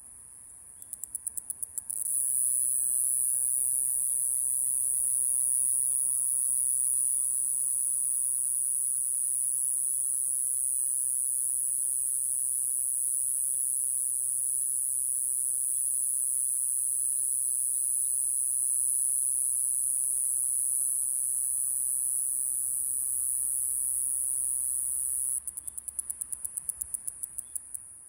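Iwasaki's grass cicada (Mogannia minuta) singing: a second of rapid pulses runs into a continuous, very high-pitched buzz lasting over twenty seconds, which breaks back into rapid pulses, about ten a second, near the end before it stops.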